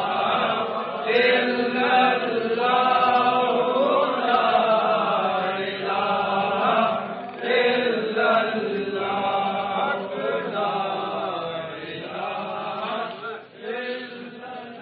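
A group of men chanting together in a devotional chant, the voices rising and falling in long phrases. The level drops near the end.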